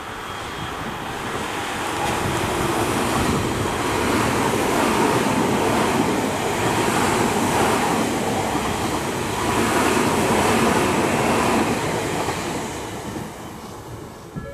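Tobu 50000 series electric commuter train running through a station without stopping, its wheels on the rails. It grows louder over the first few seconds, stays loud for several seconds as the cars go by, then fades away near the end.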